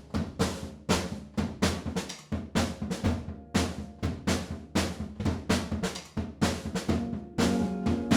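Drum kit playing a steady beat, snare and bass drum hits repeating evenly. Sustained pitched instrument notes come in near the end.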